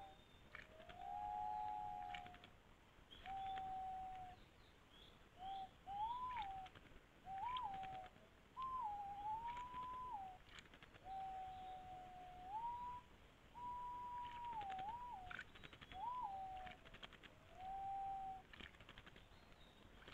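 A bird whistling a slow series of clear, mid-pitched notes, each up to about a second and a half long, some gliding up or down and some held level.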